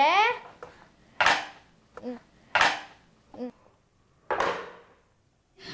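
Three sharp clacks of hard plastic as the front door of a Peppa Pig toy house is knocked on, each about a second and a half apart.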